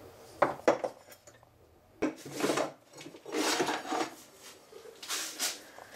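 Tools and wood being handled on a wooden workbench: a couple of sharp clicks, a knock about two seconds in, then several short scraping rustles.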